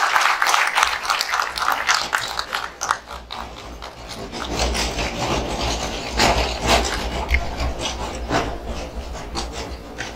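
Applause dying away, then scattered rubbing and knocking close to the microphone, with a low rumble from about four seconds in: handling noise as the microphone is taken up.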